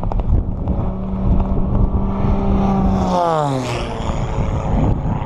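Propeller engine of a low-flying aerobatic airplane, holding a steady note as it comes in and then dropping steeply in pitch as it sweeps past about three seconds in. Heavy wind rumble on the microphone throughout.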